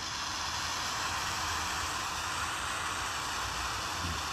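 Falcon 9 rocket's nine Merlin engines at liftoff, a steady hissing roar, heard through a small device speaker playing the SpaceX live webcast.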